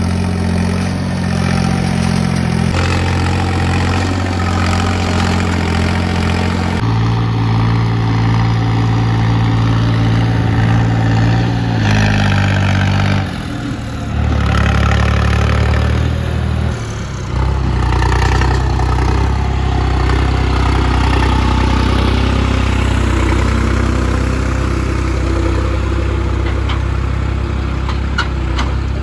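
Diesel tractor engines running steadily under load while hauling heavily loaded sugarcane trolleys. The engine note shifts abruptly to a new pitch several times.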